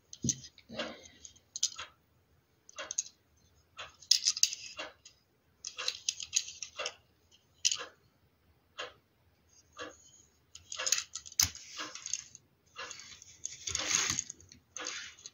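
A 1:60 scale die-cast Opel Manta A model car being handled, turned over and rolled on a glossy paper magazine: scattered short rustles, clicks and light rattles, with a light knock about eleven seconds in.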